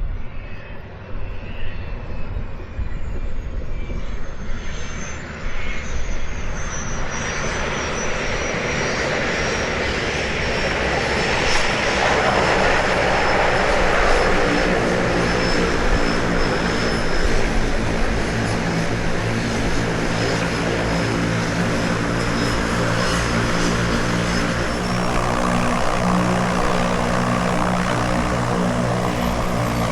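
Float plane's propeller engine running, growing louder over the first several seconds and then holding a steady drone, with a thin high whine slowly falling in pitch.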